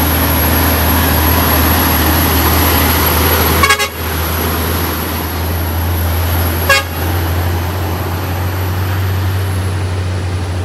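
Heavy vehicle's engine running steadily under load as it climbs, with two brief sharp snaps about four and seven seconds in.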